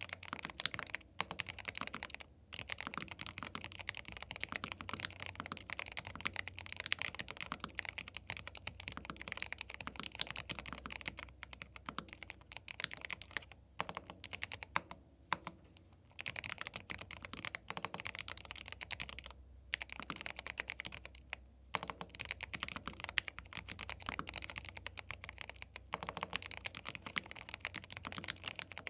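Typing on a YUNZII B75 Pro gasket-mount 75% mechanical keyboard with Milk linear switches: fast runs of key clacks with a few short pauses.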